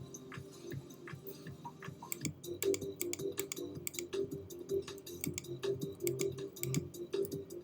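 Background music: short repeated notes with quick clicks running through it.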